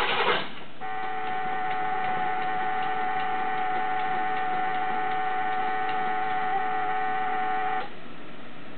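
The 1976 Oldsmobile Ninety-Eight's engine noise cuts out about half a second in. A steady, unchanging buzzer tone with a faint regular ticking follows, sounds for about seven seconds and stops abruptly.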